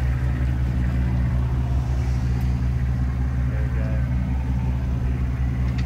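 Motorboat engine running steadily, a low even drone.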